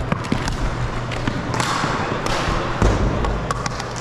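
Floor hockey play: plastic sticks and ball clacking and knocking on a gym floor in quick, irregular strikes, with a heavier thud a little before three seconds in.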